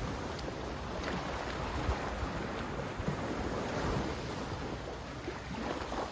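Sea waves washing in, a steady rushing noise that swells and eases.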